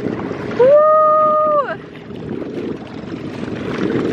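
A person's voice holds one steady note for about a second, sliding up into it and down out of it. Gusty wind buffets the microphone throughout.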